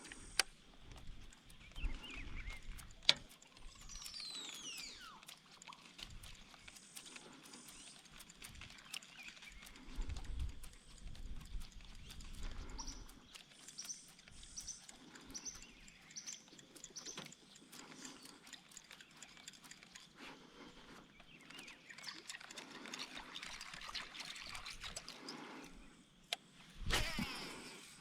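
Birds calling, with high falling whistles and a run of short repeated high notes, over scattered clicks and knocks.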